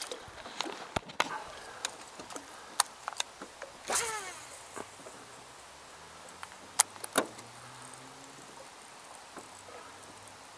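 Clicks and knocks of fishing tackle being handled in a boat. About four seconds in comes a cast: a whoosh, then a baitcasting reel's spool whirring and falling in pitch as line pays out. A couple of sharp clicks follow, then a faint low hum.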